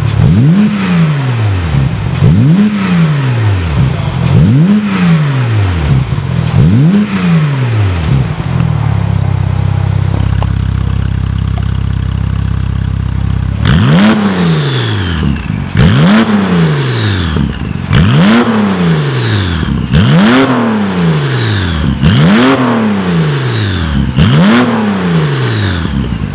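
Porsche 991.2 Carrera S twin-turbo flat-six through an Armytrix valvetronic exhaust, blipped in quick revs about every two seconds. First come four revs with the valves closed, then a few seconds at idle, then six harsher revs with the valves open, each starting with a sharp crack.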